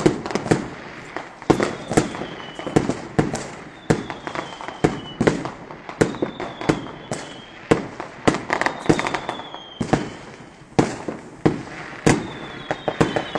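Fireworks going off: a fast, irregular run of sharp bangs and cracks, several a second, with a thin falling whistle that comes back every second or two.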